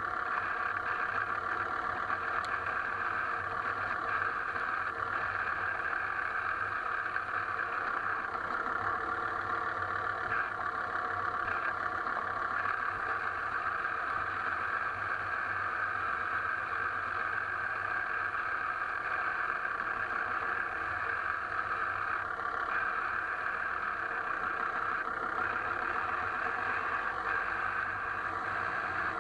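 An Alfa Romeo 159 running, a steady, even drone with no separate knock standing out.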